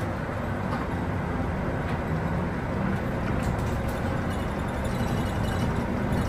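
Route bus driving along a mountain road, heard from inside the cabin: a steady low engine drone mixed with road and tyre noise.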